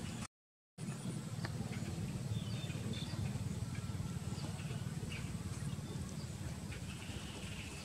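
Outdoor ambience: a steady low rumble with a few faint, short high chirps and small clicks. The sound cuts out to silence for about half a second just after the start.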